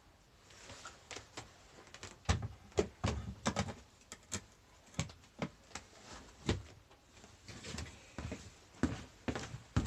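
A string of irregular sharp clicks and knocks, like small hard objects being handled and set down, most frequent from about two seconds in.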